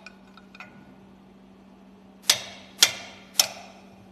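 Three sharp metallic clinks about half a second apart, each ringing briefly, as steel tools knock against the parts of a marine diesel's high-pressure fuel pump during its dismantling, over a steady low hum. Two faint ticks come first.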